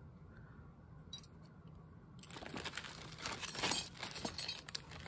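Costume jewelry clinking and jangling inside a plastic zip-top bag, with the bag rustling as it is handled. It starts about two seconds in after a single small click.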